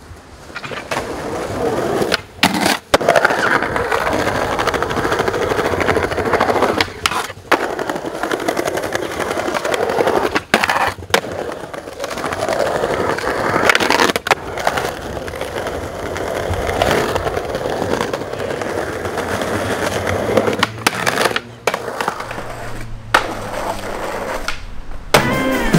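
Skateboard wheels rolling over stone paving, with occasional sharp clacks of the board, in short takes broken by several abrupt cuts.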